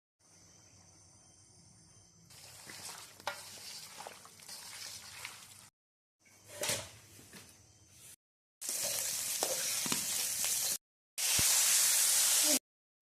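Food sizzling and frying in a hot pan, heard in several short clips split by brief dead silences, with a few clicks of a utensil stirring. The sizzling is loudest in the last two clips.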